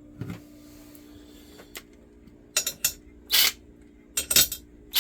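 Scattered light metallic clinks and knocks from tools and loose dryer parts being handled, five or six short hits spread over a few seconds, over a steady low hum.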